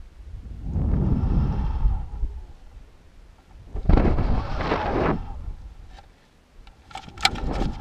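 Wind buffeting the balloon payload camera's microphone in two rumbling gusts of about a second and a half each, then a short run of sharp clicks and knocks near the end.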